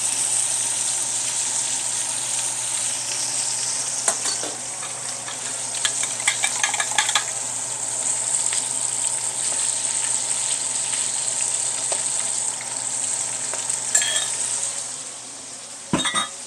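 A ribeye searing in bacon grease in a stainless skillet, sizzling steadily. A few light clinks come about halfway through, and the sizzle eases slightly near the end, followed by a sharp knock.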